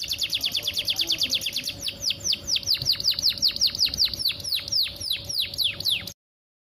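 Female canary calling a male: a fast series of short chirps, each sweeping downward in pitch, close together at first and then more spaced, cutting off suddenly about six seconds in. It is the call of a hen in breeding condition.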